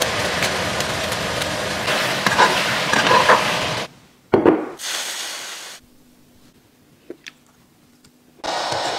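Food sizzling in a pan, a steady crackling hiss, for about four seconds. Then a single knock, and a quieter stretch with a couple of faint clicks.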